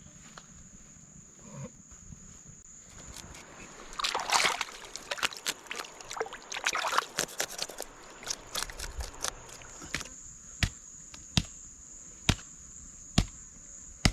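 A steady high-pitched insect drone, like crickets, under everything. From about three seconds in comes a few seconds of splashing and sloshing water, then sharp single knocks roughly once a second.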